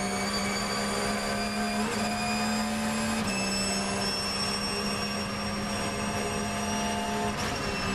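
Porsche 911 GT3 R race car's 4.0-litre flat-six at full throttle, heard from inside the cockpit, its note climbing steadily with sharp drops in pitch at upshifts about two and three seconds in. Near the end the note breaks as the driver lifts off the throttle.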